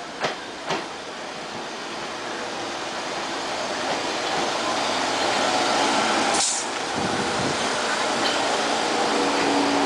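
R46 subway train pulling into the station, its wheels rolling on the rails and growing steadily louder as it approaches and passes. There are two sharp clicks near the start and a brief high hiss about two-thirds of the way through.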